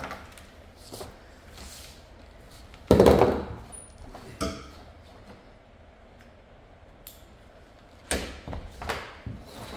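Scattered knocks and thumps of hands-on work on a van roof, as solar panel cables and connectors are handled around aluminium-framed panels. The loudest is a single thud about three seconds in, and several quicker knocks come near the end.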